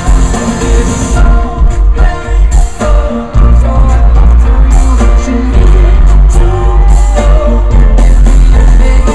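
Live rock band with singing, heard loud and bass-heavy through a crowd recording, with a brief drop in the bass about three seconds in.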